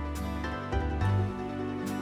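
Gentle background music with a steady bass line and soft percussion hits.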